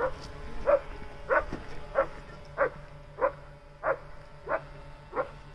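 Search-and-rescue dog barking in a steady, even rhythm, about one and a half barks a second: a bark alert signalling that it has found a victim.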